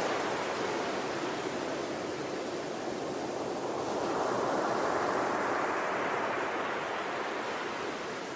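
Sea waves breaking and washing on the shore in a continuous wash of surf, swelling about halfway through and easing again.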